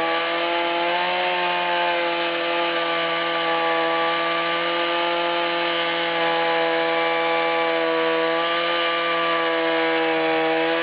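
Two-stroke chainsaw on an Alaskan chainsaw mill running at high, steady revs while ripping a log lengthwise, its pitch lifting slightly about a second in.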